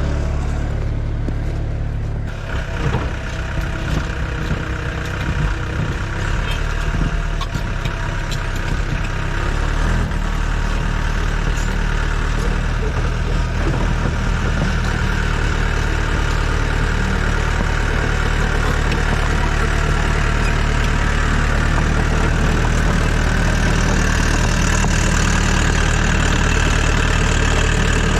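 Yanmar Vio80 excavator's diesel engine running steadily, with irregular clanks and knocks over the first several seconds before it settles to an even drone.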